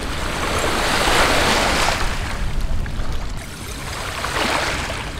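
Small waves washing up onto a stony, shingle foreshore, swelling about a second in and again near the end.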